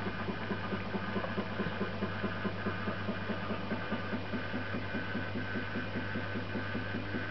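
Small electric motor of a rotating display turntable running: a steady hum with a rapid, even pulsing.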